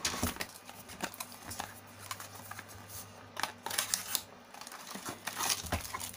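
Cardboard phone-box packaging being handled: the inner tray and lid slid and lifted out, giving irregular scrapes, rustles and light knocks.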